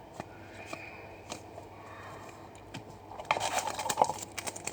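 Trading cards and a foil card pack being handled, with a few light clicks. About three seconds in comes a burst of crinkling wrapper as a pack is opened.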